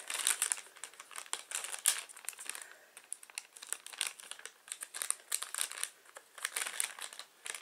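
Snack bag of injeolmi-coated almonds crinkling and crackling as it is handled and opened, in a dense run of irregular crackles that thins out in the middle and picks up again near the end.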